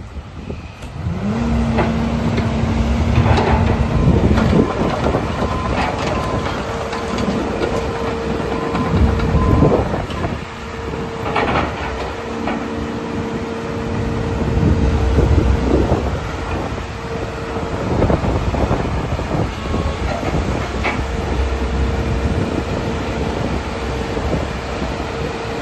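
Sany SY215C tracked excavator running: its Isuzu diesel engine comes up loud about a second in, with a steady hydraulic whine that shifts pitch, and scattered metal clanks.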